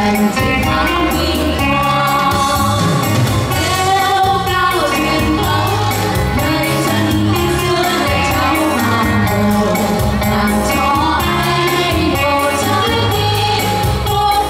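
Three women singing together into microphones, amplified, over instrumental accompaniment with a steady beat.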